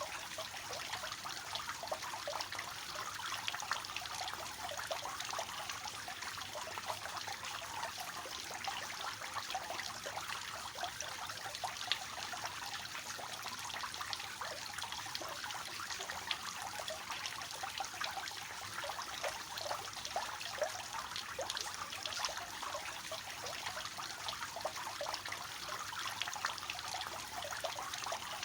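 Water falling steadily from a three-tiered cascade fountain, a continuous splashing and trickling with many small droplet splashes.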